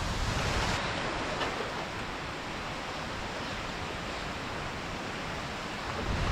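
Steady rushing noise of a rainstorm with strong wind.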